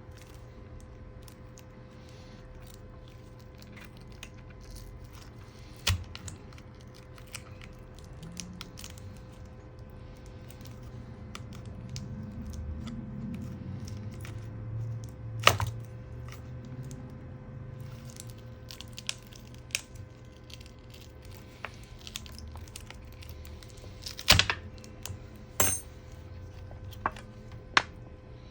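Scattered sharp clicks and taps of small parts and tools being handled on a workbench, several close together near the end, over a steady low hum.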